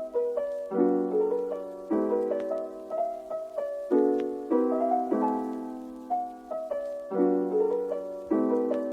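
Background music: a gentle piano piece, with soft chords struck about once a second and left to fade.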